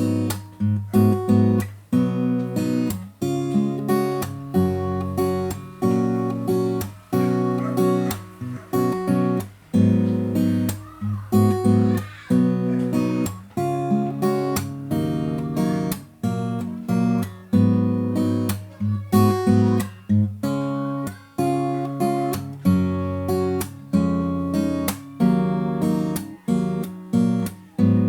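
Yamaha FG-720 steel-string acoustic guitar (spruce top, mahogany back and sides, bone saddle and pins) strummed in a steady rhythm, about two chord strums a second, tuned a half step down.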